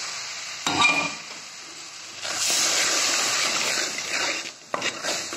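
Ground onion-tomato paste sizzling in hot oil in a steel kadhai as a wooden spatula stirs it, the sizzle swelling about two seconds in. A single knock comes about a second in, with a few light clicks near the end.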